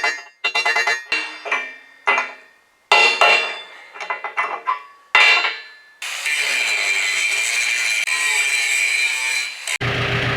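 A hammer strikes a thick steel plate about ten times, each blow ringing and dying away. About six seconds in, a power tool takes over, running with a steady high hiss and whine. Just before the end it cuts off and a low steady hum starts.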